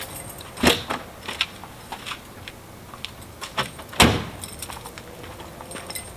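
Sharp knocks and clunks around a car, a heavy one about a second in and the loudest about four seconds in, with lighter clicks and scuffs between.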